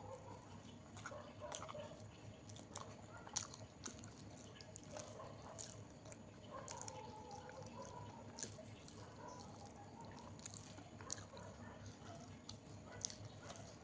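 Wet chewing and scattered sharp mouth clicks from someone eating a meal of dal and rice.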